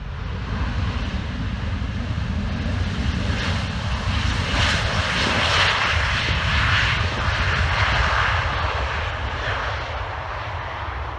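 Boeing 737-800's twin CFM56-7B turbofan engines during the landing rollout: a loud rushing jet noise over a low rumble, swelling about four seconds in and easing off near the end.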